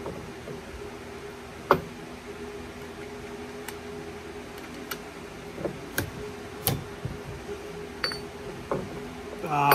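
Scattered sharp clicks and clinks of metal parts knocking together as a black metal lift-kit strut spacer is handled on a diamond-plate metal bench and nuts are fitted to its studs, the loudest knock about two seconds in. A steady low hum runs underneath.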